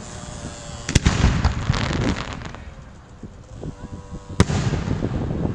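Fireworks display: two loud aerial shell bursts, one about a second in and one near the end. Each is followed by a stretch of crackling as the stars burn out.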